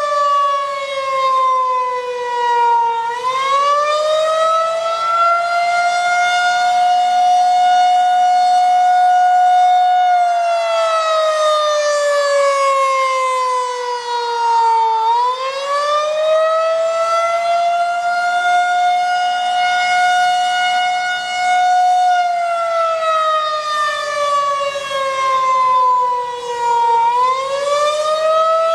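Federal Signal 2001-130 rotating outdoor warning siren sounding the attack signal, a wail. Its pitch climbs quickly, holds for several seconds, then slides slowly down, twice over and starting a third climb near the end, while the turning horn makes the loudness swell and dip.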